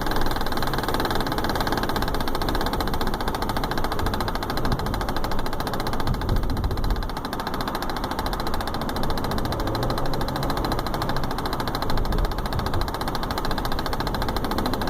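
Repeated clicking from the sunroof of a 2015 BMW X5, heard inside the cabin over the car's steady running noise.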